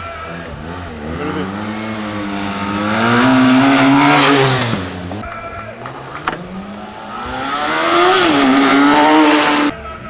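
Racing motorcycle engines at high revs, the pitch sinking and then climbing as the bikes come off the throttle and accelerate out of a hairpin. There are two passes, each building to a peak and then cutting off suddenly, with a sharp click between them.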